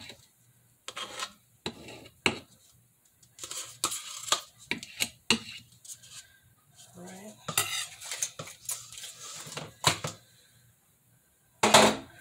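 A spoon tapping and scraping in plastic cups, with dishes clattering: short, irregular knocks and scrapes, and a louder clatter near the end.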